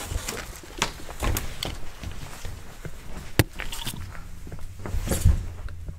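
Footsteps and clothing rustle on a hard floor, a run of scattered knocks, with a sharp click about three and a half seconds in and a heavier thump a little after five seconds.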